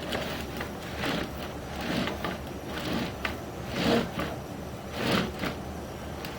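Sewer inspection camera push cable being worked back and forth in the drain line to rinse the camera lens. It makes a sliding, rasping stroke about once a second.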